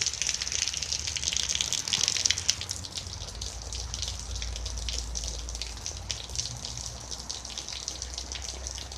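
Heavy rain pouring down, a steady hiss dotted with many individual drops striking.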